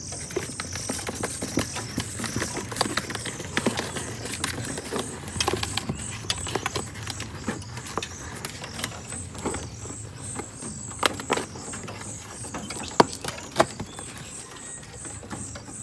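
Irregular clicks and knocks of a wire bird cage being handled as a bird is pushed through its small door, with a few louder knocks in the second half.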